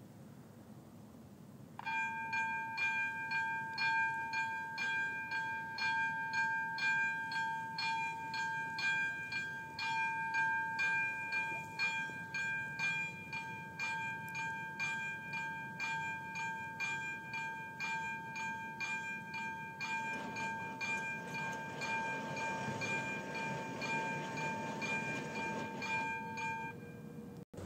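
Railway level-crossing warning bell ringing rapidly and continuously: the signal that the crossing barriers are about to come down. It starts about two seconds in and stops shortly before the end. About twenty seconds in, a low mechanical rumble joins it as the barriers lower.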